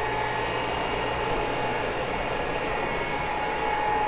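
Carpet-cleaning machine's motor running steadily with a high whine.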